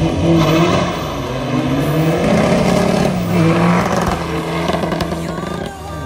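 Tuned VW Golf V 2.0 TDI diesel engine accelerating hard at full throttle down a drag strip, its pitch climbing twice as it pulls away.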